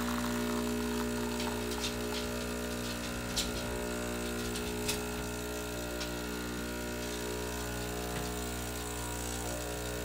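Espresso machine's vibratory pump humming steadily through a shot extraction, with a couple of faint ticks in the middle.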